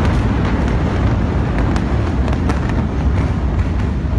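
Low, steady rumble of a large industrial explosion fire, with scattered sharp pops and crackles of smaller secondary blasts throughout.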